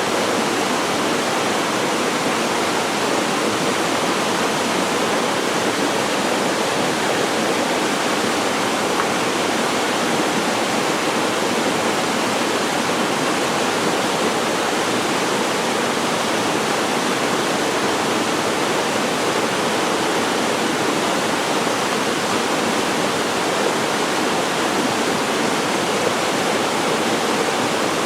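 Chilyeon Falls, a waterfall, giving a steady, unbroken rush of falling water.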